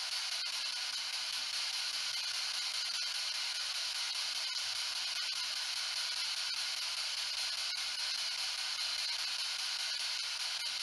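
Ghost box radio giving off steady static hiss while it sweeps, with faint ticks now and then.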